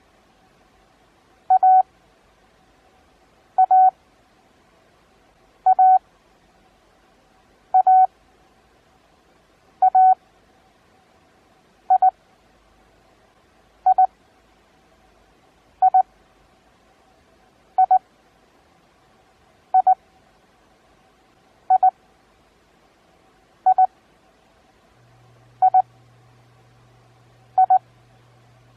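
Morse code practice tone (CW) sending single letters at 20 words per minute with wide Farnsworth spacing, one letter about every two seconds. The first several letters are longer than the short ones that follow from about twelve seconds in.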